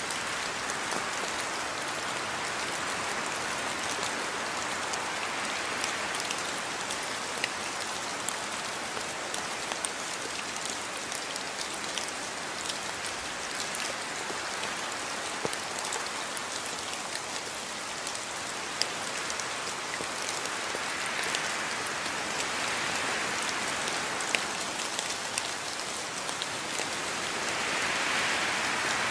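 Steady rain falling: a constant hiss with scattered sharp drop ticks, swelling a little louder near the end.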